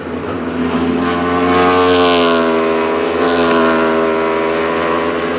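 Wolf GB08 Thunder race car with a 1,000cc Aprilia RSV4 V4 superbike engine passing at speed, its engine note loudest about two seconds in and then dropping in pitch as it goes by.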